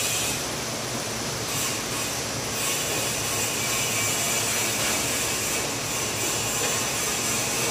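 Steady, continuous mechanical noise of workshop machinery.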